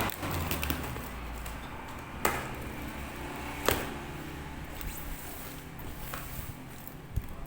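A few sharp clicks or knocks, the two loudest about two and three and a half seconds in, over a low rumble.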